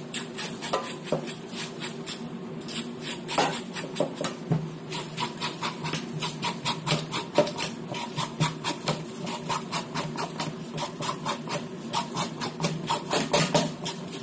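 A spoon scraping the skin off a bottle gourd (upo) over a sink, in quick repeated strokes of about four or five a second, over a steady low hum.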